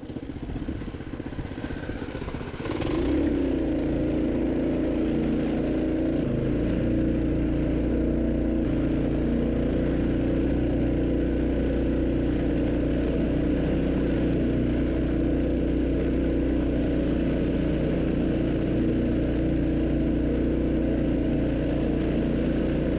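Mini bike's small engine revving up about three seconds in, then running at a steady pitch at full throttle.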